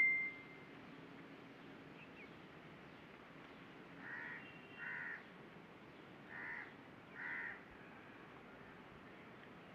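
A crow cawing four times, two pairs of short caws.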